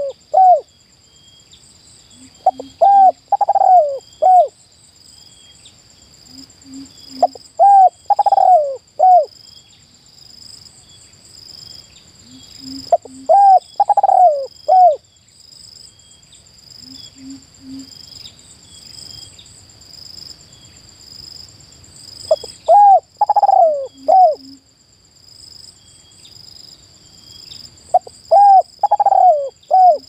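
Spotted dove cooing its rolling 'kuk' call, five phrases of arched notes spaced about five seconds apart with a longer pause midway, soft low notes between them. Insects trill steadily and high in the background.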